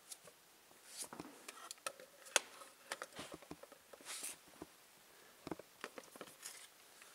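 Faint handling noises: scattered small clicks and ticks with brief rustles, about a second in and again about four seconds in, the sharpest click about halfway through.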